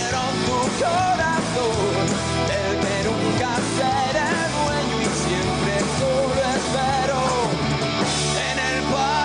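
Rock band playing live on electric guitar and drums, a melodic line bending up and down in pitch over the band.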